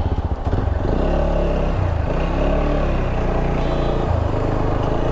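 Single-cylinder engine of a TVS Apache RTR 160 4V motorcycle running, its pitch rising and falling, over a low rumble.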